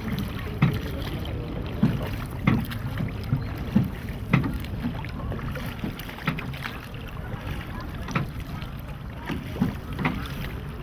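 Water splashing and slapping against a small river boat as it moves through choppy water. Irregular sharp slaps come every second or so over a steady low rush of water and wind.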